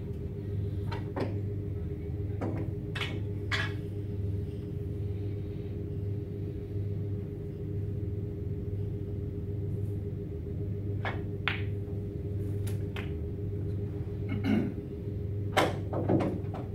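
Steady low hum of the room with scattered sharp clicks and knocks from play around a snooker table, the loudest near the end.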